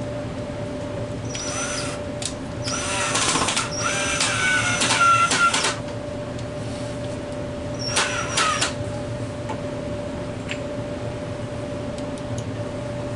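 Power drill running in three short bursts, the middle one about three seconds long, its whine dipping in pitch as it loads, as when drilling pilot holes or driving screws into wood. A steady hum runs underneath.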